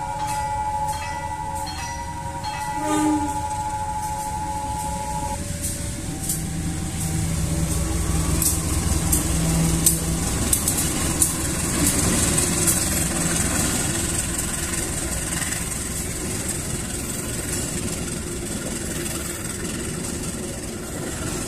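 A diesel locomotive's horn sounds one steady chord for about five seconds. Then the engine rumbles past, and the wheels clatter over the crossing as the passenger coaches roll by.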